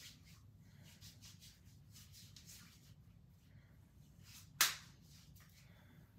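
Faint handling rustles, then a single sharp snap or click about four and a half seconds in.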